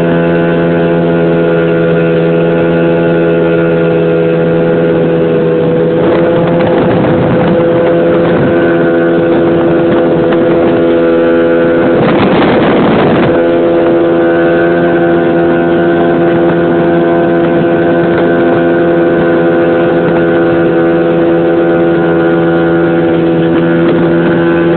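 Motorboat engine running at a steady speed, a constant loud drone. Two stretches of rushing noise rise over it, about six seconds in and again about twelve seconds in.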